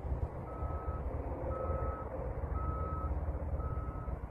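Reversing alarm beeping: a single high tone repeating evenly about once a second, four beeps, over a steady low rumbling noise.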